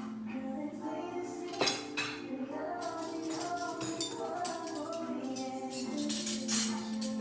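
Cutlery and china dishes clinking as tableware is handled and set down on a table, a few sharp clinks standing out, with background music playing under them.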